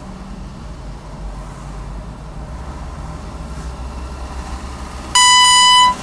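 Steady low rumble of a car driving in traffic, then a single loud electronic beep, one flat tone about two-thirds of a second long, a little after five seconds in that stops abruptly.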